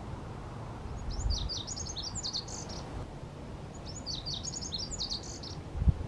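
Male lazuli bunting singing two quick, high, jumbled song phrases, one after the other with a pause of about a second between them. A loud low thump comes near the end.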